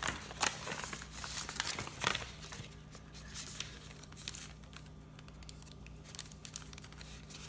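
Plastic toy packaging of a Shopkins pack crinkling and tearing as it is handled and opened, with irregular crackles that are busiest in the first couple of seconds and thin out afterwards.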